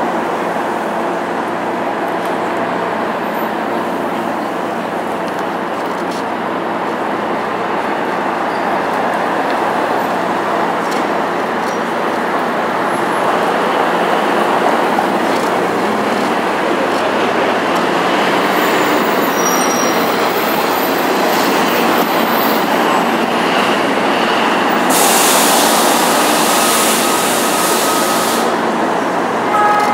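Steady city street traffic noise: cars and taxis passing, with a hiss for about three seconds near the end.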